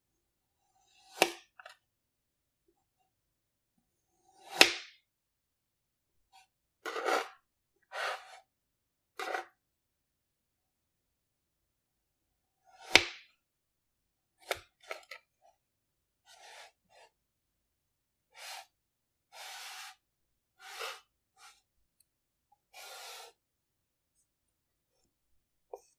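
Kinetic sand being sliced with a thin blade: a string of short, crisp cutting strokes with silence between them, some soft and crumbly. The sharpest and loudest come about one, five and thirteen seconds in.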